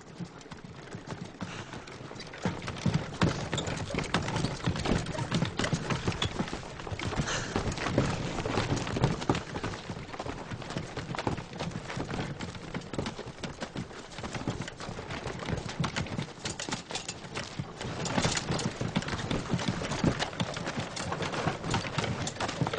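A horse walking, its hooves clopping, among a steady clatter of many small knocks on a rough track.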